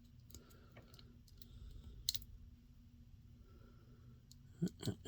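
Small hard-plastic clicks from handling an action figure and its tiny accessory pieces: faint scattered ticks, a sharper click about two seconds in, and a few louder knocks near the end.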